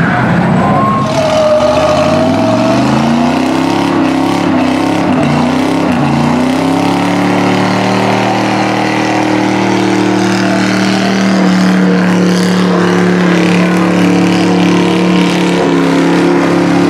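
A full-size SUV's engine revs up over the first few seconds and is then held at high, steady revs during a burnout, with the rear tyres spinning and squealing on the pavement.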